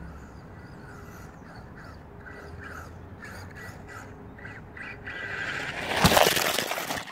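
A bird calling over and over, then an RC car coming fast along a gravel path and rushing past the camera, rising to a loud peak about six seconds in before cutting off suddenly.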